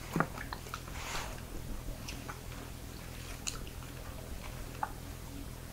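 Roast lamb being torn apart by hand on a wooden board: soft squishing with scattered small clicks and a brief rustle about a second in. The meat is slow-roasted until it falls apart.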